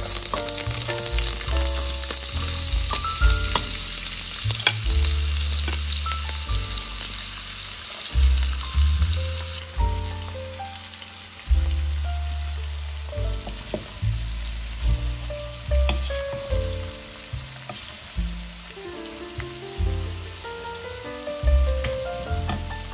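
Chopped vegetables hitting hot vegetable oil in a pot: a loud sizzle that slowly dies down and cuts off sharply about ten seconds in. Then quieter frying, with a spatula stirring the vegetables and giving scattered clicks.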